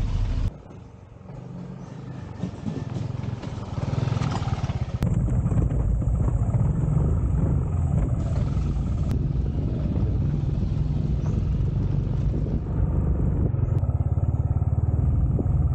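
Motorcycle engine running as the bike is ridden along. About half a second in it drops much quieter, then builds back up over the next few seconds to a steady run.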